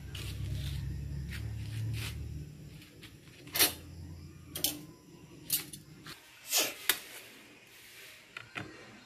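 Kitchen handling sounds: a series of short, sharp clicks and knocks about a second apart as things are moved on the counter and at a steel sink, including a plastic bag and plastic tub being handled, over a low hum that stops about six seconds in.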